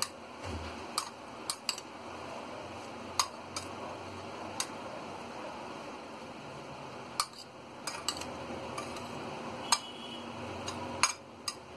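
A metal spoon stirring chopped tomato, onion and capsicum in a plate, with a soft steady stirring sound and about ten sharp clinks of the spoon against the plate at irregular moments.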